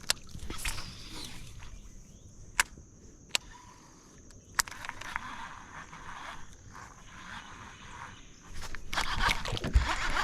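Outdoor riverbank ambience with a steady high-pitched hum, a handful of sharp clicks in the first half, and louder rustling or handling noise rising near the end.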